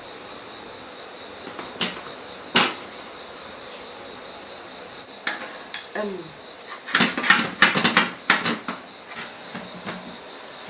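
Bowls and eating utensils clinking and knocking as people eat: a couple of single clicks, then a quick cluster of clinks about seven to eight and a half seconds in. Crickets chirp steadily throughout.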